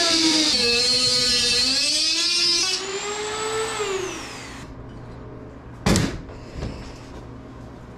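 Dremel rotary tool with a thin metal cut-off wheel whining as it cuts a slot in an aluminium wing spar, its pitch dipping and recovering under load. About three seconds in it speeds up briefly as it comes out of the cut, then winds down and stops by about four seconds. A loud knock near six seconds, then a fainter one.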